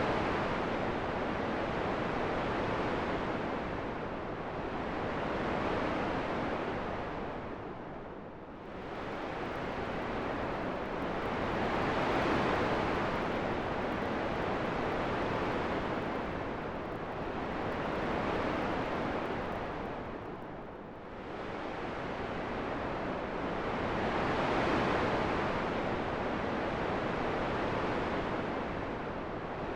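Wind rushing in slow gusts, a steady hiss that swells and fades every few seconds, easing off more deeply about eight seconds in and again about twenty-one seconds in.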